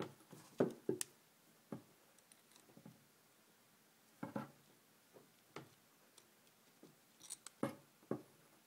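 Light, scattered clicks and taps of needle-nose pliers and copper wire against a paper template on a tabletop, as a bend in the wire crankshaft is reworked by hand.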